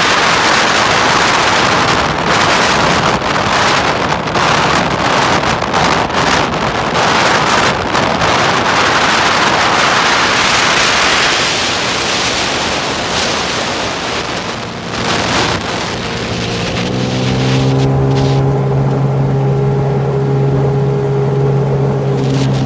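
Wind buffeting the microphone over rushing water, then from about 17 s a steady engine hum as a Sea-Doo Spark jet ski runs at speed across the water.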